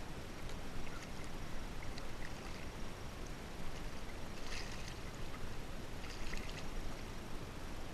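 Water lapping and splashing around a kayak's hull, with two brief louder splashes about halfway through and later on, among scattered small knocks.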